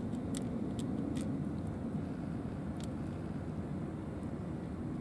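Cats eating dry kibble, with a handful of short, sharp crunches in the first three seconds, over a steady low rumble of outdoor background noise.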